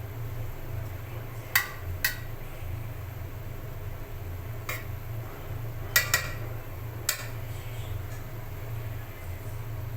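A metal spoon or utensil clinking against dishes, about six sharp clinks spread irregularly, two of them in quick succession about six seconds in, over a steady low hum.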